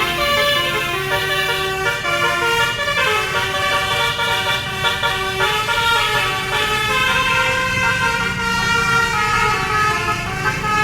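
Indonesian bus 'telolet' musical horn sounding without a break, several tones together stepping from note to note in a tune, over a steady low drone.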